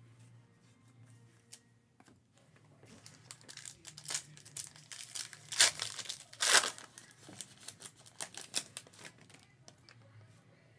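Foil wrapper of a trading-card pack being torn open and crinkled by hand: a run of sharp crackling tears starting about three seconds in, loudest around the middle, and dying away near the end.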